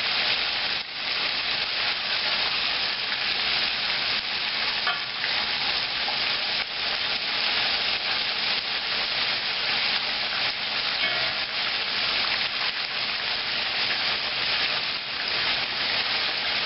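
Chicken pieces deep-pan frying in hot oil, a steady dense sizzle and crackle, with a few faint clinks of a fork or pan.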